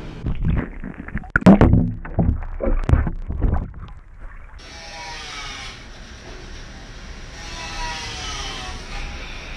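Knocks and bumps of a small camera being handled and moved about for the first four or five seconds, then a steady rushing noise.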